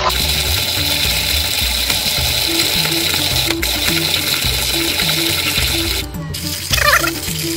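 Hario Mini Mill hand burr grinder cranked quickly, its ceramic burrs crushing coffee beans in a steady gritty rasp that stops about six seconds in. Background music with a regular beat plays underneath.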